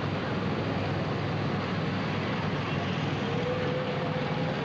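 Steady low rumble and hiss of a moving vehicle carrying the camcorder.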